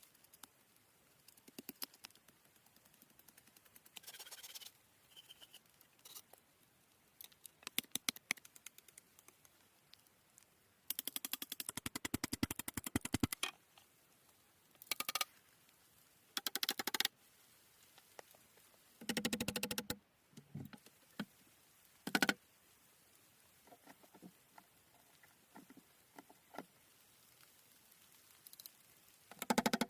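Shelter materials being handled and worked by hand: irregular bursts of scraping and rustling with scattered clicks, the longest stretch of rapid rasping coming about eleven seconds in.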